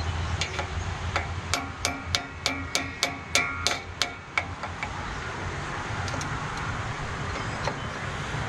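Hammer striking a steel pin on a John Deere skidder's winch, driving the pin over: about a dozen ringing metal-on-metal blows, roughly three a second, stopping about four seconds in.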